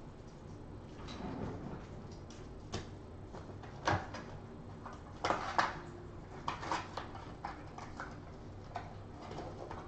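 A cardboard trading-card hobby box being opened by hand: irregular crinkling, rustling and small knocks of card stock and packaging being handled. The sharpest crinkles come in short clusters midway through.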